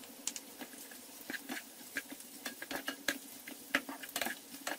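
Wooden spoon stirring tomato-pepper paste into diced beef, onions and peppers in a stone-coated frying pan, with irregular knocks and scrapes against the pan over a faint sizzle.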